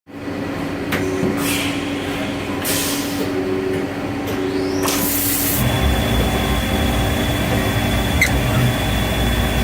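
CNC lathe running, with short bursts of hissing spray and a steady hum; a low rumble comes in about halfway through.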